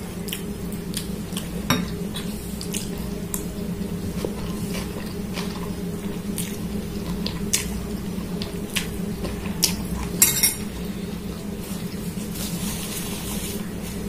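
Metal fork and spoon clinking and scraping against a glass bowl of noodles in scattered taps, with a quick cluster of clinks about ten seconds in. A steady low hum runs underneath.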